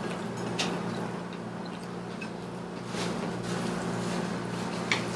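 Pizza being eaten: chewing with three short sharp mouth smacks or clicks, the last near the end the loudest, over a steady low hum.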